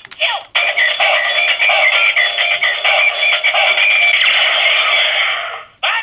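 Gabutyra De Carnival toy's electronic sound effects through its small built-in speaker: a thin, tinny carnival-style music jingle for a Kamitsuki Change combo, starting about half a second in and stopping shortly before the end.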